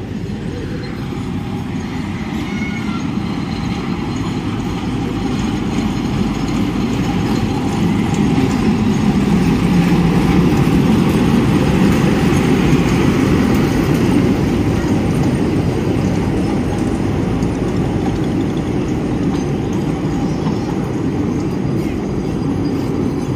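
Small narrow-gauge toy train, a locomotive pulling open passenger carriages, approaching and passing close by. A low rumble of the engine and wheels on the rails grows louder, is loudest about halfway through, and carries on as the carriages roll past.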